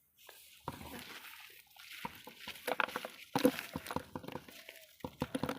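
Irregular splashes and knocks in water, coming thicker in the middle of the stretch.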